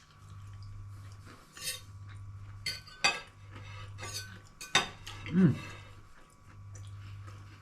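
Knife and fork clinking and scraping on a plate while a breaded chicken fillet is cut, with about five sharp clinks spread through, over a steady low hum.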